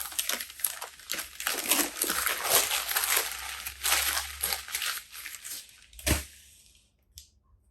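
Packaging wrap crinkling and rustling as a camera is handled and unwrapped, for about six seconds, then a single knock.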